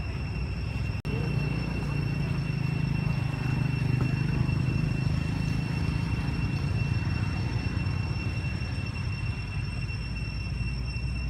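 A steady low rumble, strongest a few seconds in and easing off toward the end, under a steady high-pitched whine. The sound cuts out for an instant about a second in.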